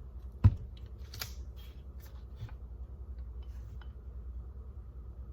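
Handling noise from an AR pistol: a single dull thump about half a second in, then a scatter of light clicks and taps as the rifle and its parts are moved.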